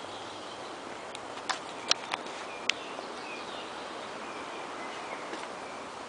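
Birds chirping over a steady rustle of wind in the trees, with a few sharp clicks between about one and a half and three seconds in.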